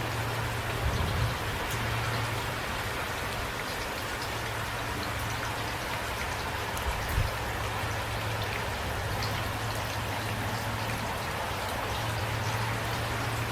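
Steady rain falling, with individual drops ticking through the constant hiss. There are a couple of brief low thuds about a second in and about seven seconds in.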